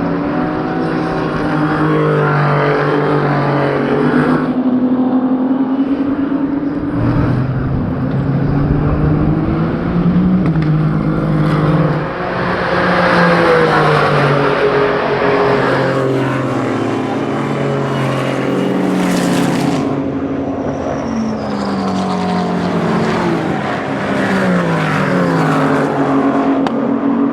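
Several racing car engines running hard at once, their pitches climbing and dropping in steps as they accelerate and shift gear.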